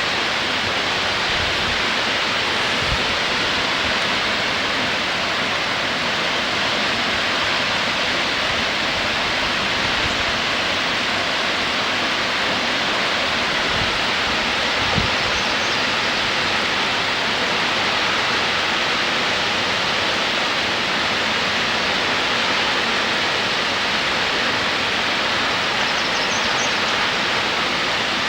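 Waterfall: a steady, unbroken rush of falling water, with a few soft low bumps along the way.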